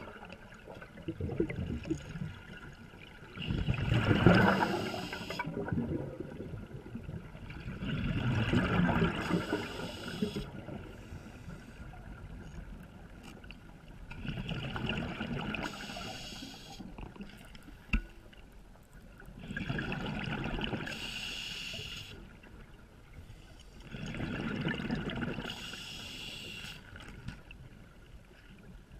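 A diver breathing underwater: a rush of exhaled bubbles about every five to six seconds, with quieter gaps between breaths. A single sharp click sounds about two-thirds of the way through.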